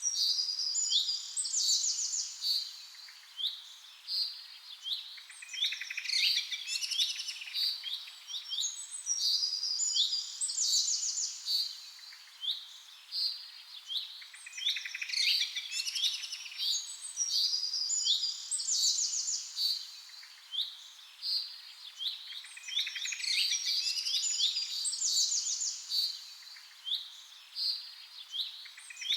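Birds chirping and singing, many short overlapping chirps and trills coming in bouts that recur every several seconds.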